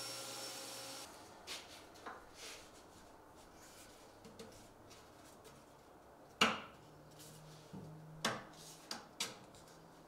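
A table saw running for about the first second, then a series of sharp wood-on-wood knocks and taps as curved walnut bead pieces are slid and pressed into place between the case dividers. The loudest knock comes a little past the middle.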